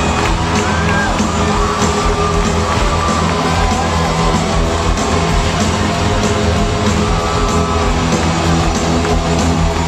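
Loud live rock music through an arena sound system, heard from within the audience, with the crowd yelling.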